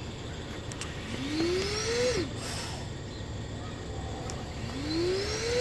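Turbine blower of an FMT 700 ventilator cycling breaths. Twice, about three and a half seconds apart, a whine rises in pitch over about a second as the turbine speeds up to push a breath, then drops away sharply. A steady low hum runs underneath.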